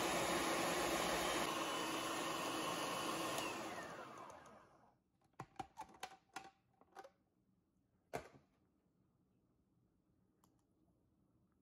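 Food processor motor running steadily as its blade chops raw vegetables. About three and a half seconds in it is switched off and whines down as the blade spins to a stop. Then come a quick series of plastic clicks and one louder knock as the bowl's lid is unlocked and lifted off.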